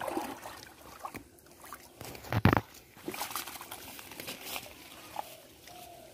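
Water sloshing and dripping as a wet cast net with large fish in it is dragged through the shallows onto a muddy bank, with small scattered splashes and one sudden loud thump about two and a half seconds in.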